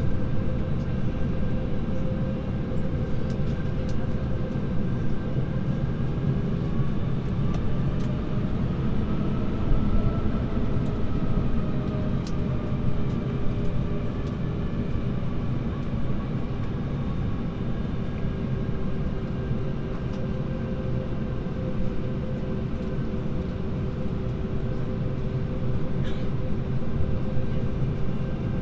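Airbus A321's IAE V2500 engines at idle, heard inside the cabin: a steady rumble with a faint engine whine that drifts gently up and down, and a few small clicks.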